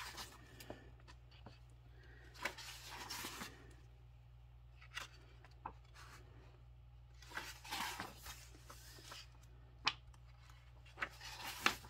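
Pages of a paperback coloring book being turned: soft paper rustles, two longer ones about three and eight seconds in, with small taps between, over a faint steady low hum.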